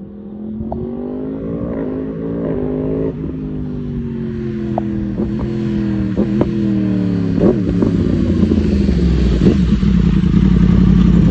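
2016 Yamaha R1's crossplane inline-four through an Akrapovic exhaust: the revs climb for about three seconds, then fall away slowly, then hold a steady lower note that grows louder toward the end.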